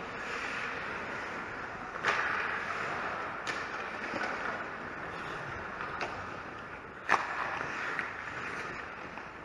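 Ice hockey play: a steady scrape of skates on ice, broken by several sharp clacks of sticks and puck, the loudest about seven seconds in.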